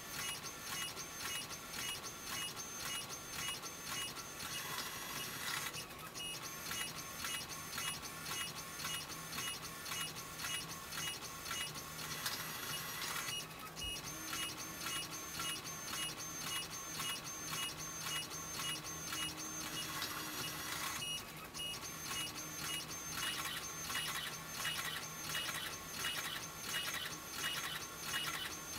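Alps MD5500 Micro Dry printer printing a colour photo, its print head chattering rapidly and rhythmically over a steady mechanical whine, with a few brief breaks. The sound is played back sped up.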